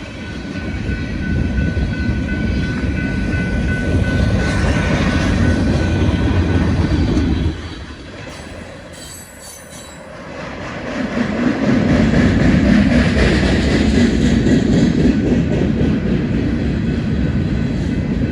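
Freight train cars rolling past close by with a steady rumble and rattle. A faint thin steel-wheel squeal runs in the first few seconds. The sound drops off suddenly about seven seconds in and builds back up a few seconds later.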